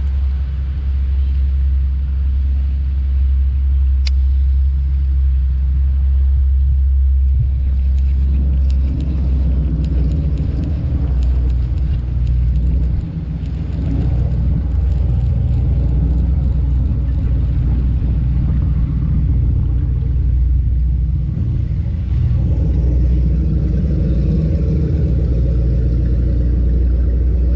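Wind buffeting the camera's microphone: a loud, steady low rumble with a brief dip about 13 seconds in.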